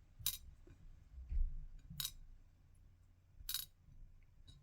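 Light metallic clicks and clinks from the small pins of a gutted Assa 600 lock cylinder being handled, with three sharper clicks spaced about a second and a half apart.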